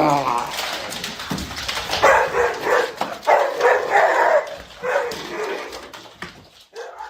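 A dog barking and whining in a run of separate calls that grow fainter toward the end.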